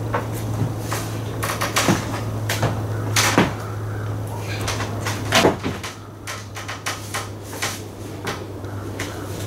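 Long wooden boards knocking and clattering against each other and the wall as they are lifted and shifted, with the loudest knocks about three and a half and five and a half seconds in. A steady low hum runs underneath.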